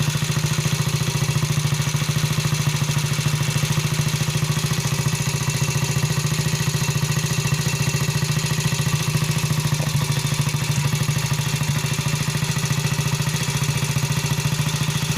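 Terrot 125 ETDS motorcycle engine idling steadily, with an even firing beat and no change in speed.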